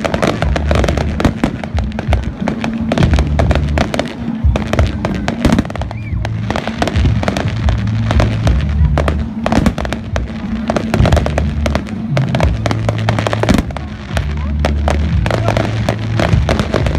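Fireworks display: a dense, continuous run of shell bursts and crackling, with bass-heavy music playing underneath.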